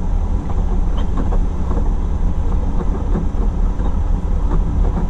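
Semi truck's diesel engine running, a steady low rumble heard from inside the cab, with a few light ticks and rattles.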